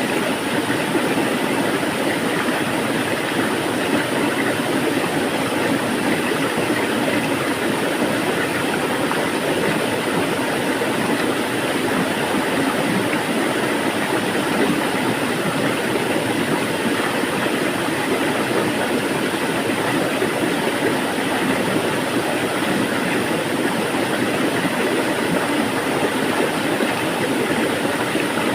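Flowing water: a steady, unbroken rushing wash with no rise or fall.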